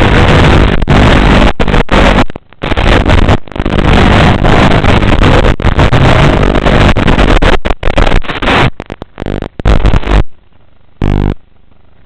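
FPV quadcopter's brushless motors and propellers running loud and harsh, cutting in and out as the throttle changes. The sound stops about ten seconds in, with one short burst a second later, as the video link breaks into static.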